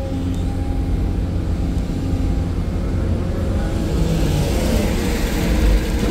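Excavator's diesel engine running steadily with a deep rumble and a few steady tones above it. From about three and a half seconds in, a rougher, noisier sound builds over it.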